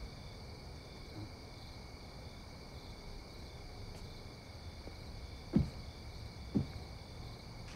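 Crickets chirring steadily in the night air, with two soft thumps about a second apart a little past the middle.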